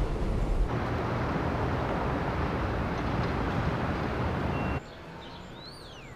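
Low rumble inside a light-rail car, which gives way after under a second to an even wash of city traffic noise. About five seconds in it drops to a quieter street where a bird sings a couple of arching whistles.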